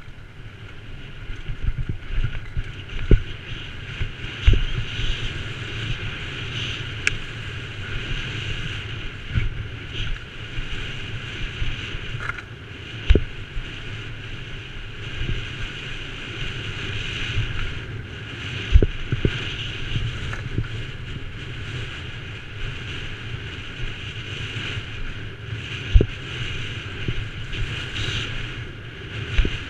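Downhill mountain bike ridden fast down a rough dirt trail: steady wind rush over the camera microphone with tyre and chain rattle, broken by about half a dozen sharp knocks as the bike hits bumps and lands.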